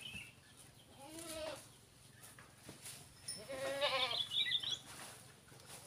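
A goat bleating twice: a short call about a second in, then a louder, longer, quavering call near the middle.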